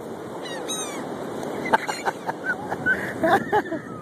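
Seagulls calling in short cries, a few high falling calls early on and a busier cluster in the second half, over a steady hiss of wind and surf.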